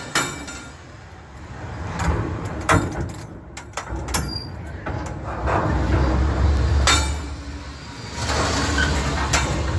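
Freight train rolling directly overhead, heard from between the rails: a low rumble that swells as each set of wheels passes and eases between cars, with several sharp metallic clanks.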